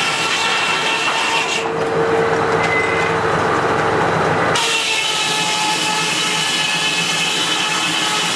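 Antique circular sawmill running, its large circular blade sawing a log on the carriage into boards, with a steady whine over the cutting noise. The sound changes abruptly about four and a half seconds in.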